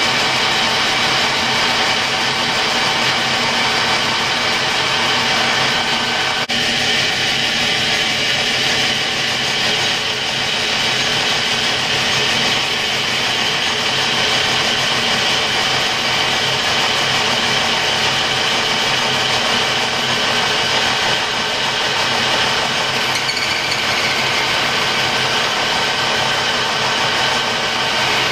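Colchester Student metal lathe running steadily, its drive giving a constant hum of several tones, while a lathe tool cuts and rubs the edge of a spinning copper ring to round off its sharp edge. One sharp tick about six and a half seconds in.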